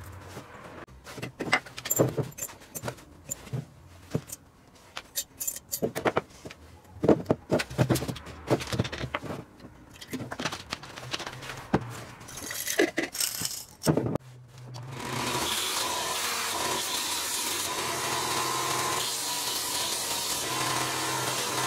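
Small metal parts clinking and rattling in irregular clicks for the first fourteen seconds or so. About fifteen seconds in, an electric bench grinder with a belt-sander arm starts running, a loud, steady whir with a constant hum.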